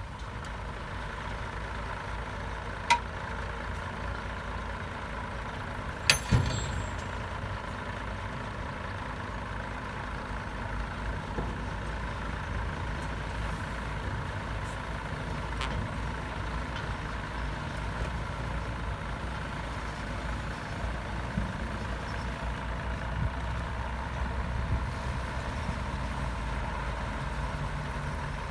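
Heavy diesel earthmoving machinery running steadily, with a sharp click about three seconds in and a loud knock about six seconds in.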